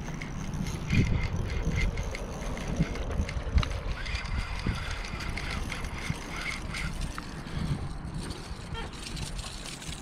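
Spinning fishing reel being wound in against a hooked fish, its gears giving a faint run of small ticks, under a steady rumble of wind on the microphone.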